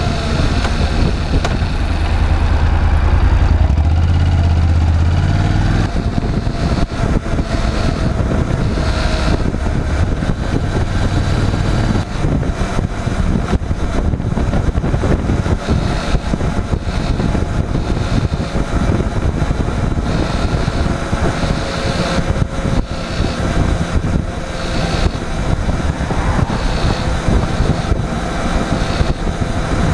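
Honda NC750X parallel-twin motorcycle engine running, with a deep swell of engine sound in the first few seconds, then a steady mechanical running sound to the end.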